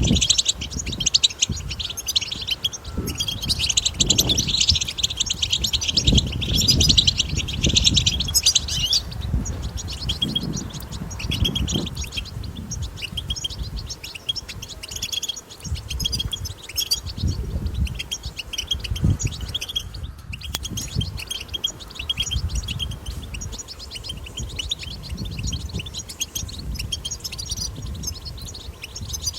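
European goldfinches twittering: a dense, continuous run of rapid high chirps and trills, louder for the first nine seconds or so and then fainter, over a low irregular rumble.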